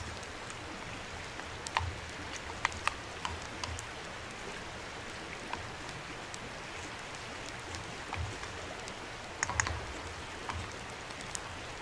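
A spatula stirring and scraping food in a small steel camp pot on a grill grate, giving irregular light clicks, with a small cluster near the end, over a steady hiss.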